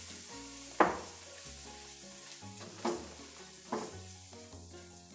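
Butter-and-flour roux sizzling in a nonstick wok while a silicone spatula stirs it briskly, the start of a white sauce. Three sharp knocks stand out, the loudest about a second in and two more around three and four seconds.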